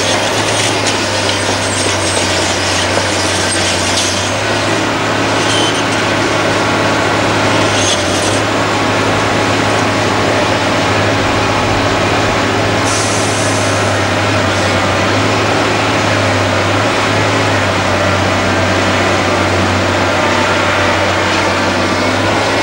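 Liebherr R962 Litronic crawler excavator's diesel engine and hydraulics running steadily under load as it swings and digs. A few short hisses come through about 4, 8 and 13 seconds in.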